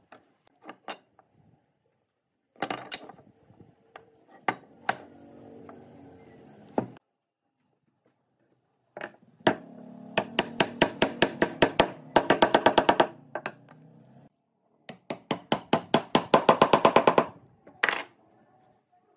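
Hammer blows on wood as tenoned legs are knocked into a pine base: a few scattered knocks, then two quick runs of light, even strikes, about five a second, each lasting two to three seconds.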